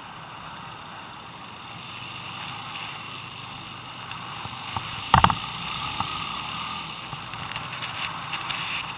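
ATV riding over wet, icy ground: its engine running under a steady noise of tyres on slush, with a sharp knock about five seconds in, the loudest sound, and a few lighter knocks after it.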